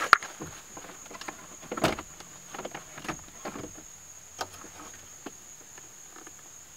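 Plastic centre-console trim being worked loose and lifted out by hand: scattered clicks, knocks and rustling of the panel and its clips, the sharpest about two seconds in. A steady thin high-pitched whine runs behind it.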